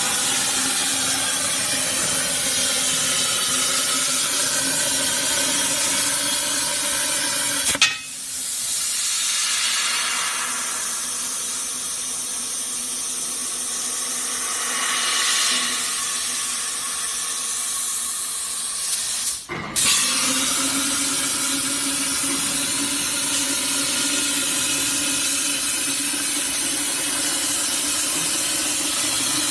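CNC plasma torch cutting round steel pipe: a loud, steady hiss of the arc and its air jet. The sound changes abruptly twice, at about eight and twenty seconds in, and the middle stretch is thinner, with less low rumble.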